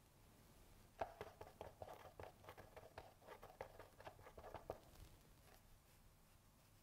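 Paintbrush dabbing and scraping paint around a plastic palette tray while mixing a colour: a faint, quick run of soft clicks and scrapes that starts about a second in and stops near the five-second mark.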